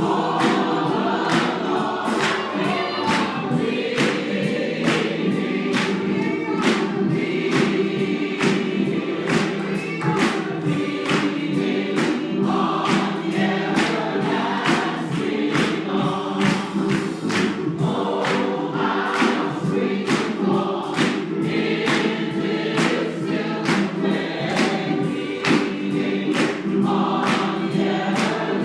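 A church congregation singing a gospel song together, with sharp beats keeping a steady rhythm of about two a second.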